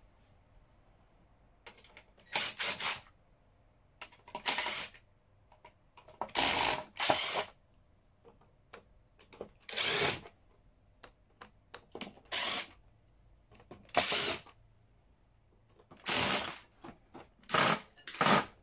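Small cordless electric screwdriver running in short bursts, each under a second, every couple of seconds, as it undoes the screws on the underside of a metal inverter casing.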